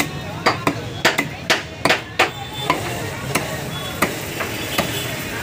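Broad-bladed knife chopping a snakehead fish into steaks on a wooden log block. A quick run of sharp chops comes in the first two seconds or so, then lighter, more spaced knocks.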